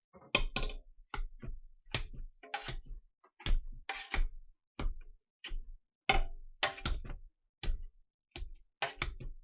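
Potato masher pushing down through boiled potatoes, each stroke a short knock against the pot, about two a second in an uneven rhythm.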